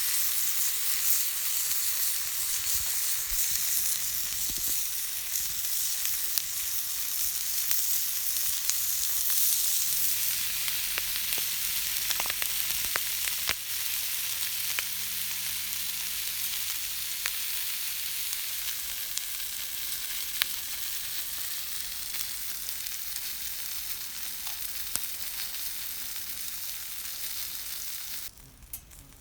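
Pig's trotters sizzling in a skillet as their fat renders out, a steady frying hiss with scattered small pops. It slowly fades, then cuts off abruptly near the end.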